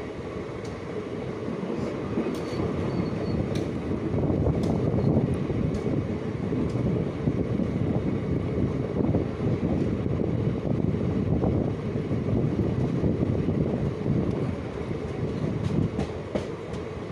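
Running noise of an Indian Railways passenger coach in motion, heard at its open doorway: a steady rumble of wheels on the rails with a few light clicks. It grows louder about four seconds in.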